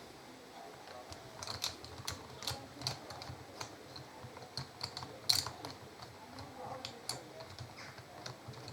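Light, irregular metallic clicks and taps of hand tools and bolts being worked on a motorcycle brake caliper, the loudest about five seconds in.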